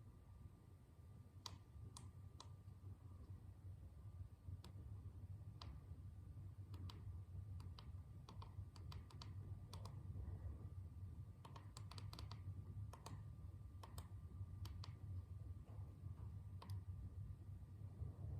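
Sparse, irregular light clicks and taps, some in quick little clusters, as small tools and parts are handled while working on the motorcycle's rear wheel, over a low steady hum.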